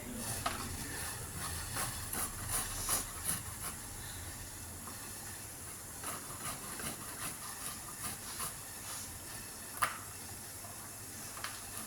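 Steady hiss of water heating in a pot on the stove for ginger tea, with a string of light scrapes and clicks that are thickest in the first few seconds and again around six to nine seconds, and one sharper click near ten seconds.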